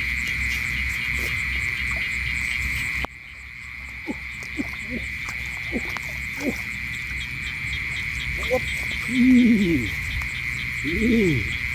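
Frogs and insects calling together: a steady high insect trill throughout, with frogs giving short croaks and two longer rising-and-falling croaks near the end. The whole chorus drops quieter for a moment about three seconds in.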